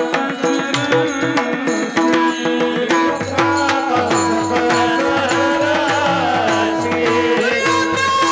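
Varkari bhajan music: fast, dense pakhawaj (mridang) drumming over a steady harmonium drone, with sharp cymbal strokes. A melodic line bends up and down through the middle.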